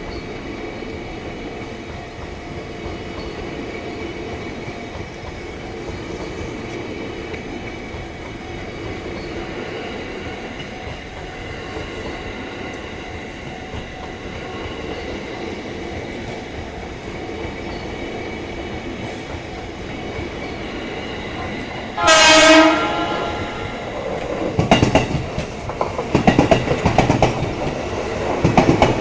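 JR East E233-series electric train approaching and giving one short blast of its emergency horn about 22 seconds in, then passing close by with loud, rhythmic clattering of its wheels over the rail joints.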